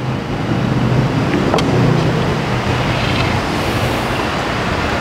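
A steady vehicle-engine rumble with a hiss over it, with a single click about a second and a half in.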